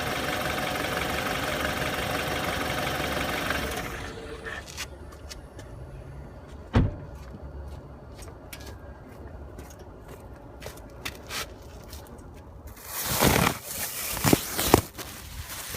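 A car engine running steadily, which stops about four seconds in. It is followed by faint scattered clicks, a single thump, and a louder cluster of knocks and noise near the end.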